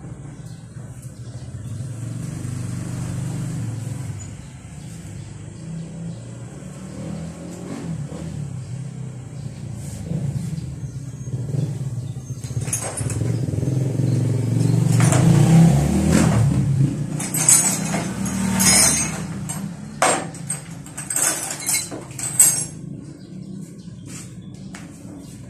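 Motor scooter engine running near idle. It swells louder for a few seconds about halfway through, then settles, and a run of sharp clicks and knocks follows near the end.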